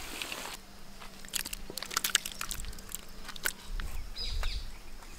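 Scattered light clicks, clinks and crunchy scraping of a metal ladle against a large cooking pot as cooked spaghetti is stirred and lifted out, over a faint steady hum.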